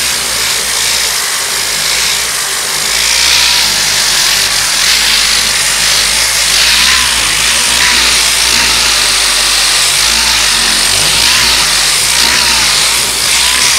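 Power sander running steadily with 80-grit paper on body filler, a constant high-pitched rush with a faint wavering whine as the motor speed shifts under load.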